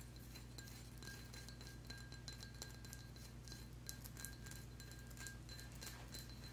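Fingernails lightly tapping and scratching along a selenite wand, a faint run of many small irregular clicks, over a faint high ringing tone and a low steady hum.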